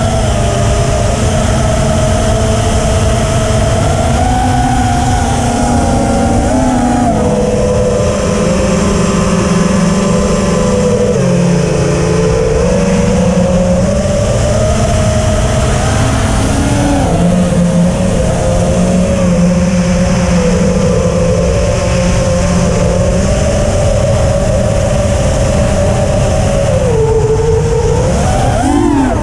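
FPV quadcopter's four EMAX RSII 2206 2700KV brushless motors and propellers whining in flight, the pitch shifting up and down with the throttle, over a steady low rumble. Near the end the pitch drops sharply and then surges back up.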